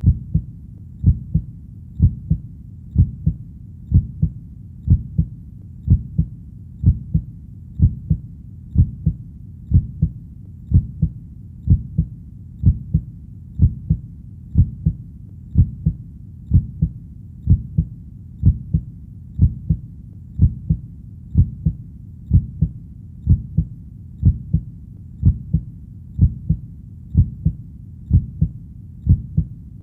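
Heartbeat: a steady rhythm of paired low lub-dub thumps, about one beat a second, over a faint low rumble between beats.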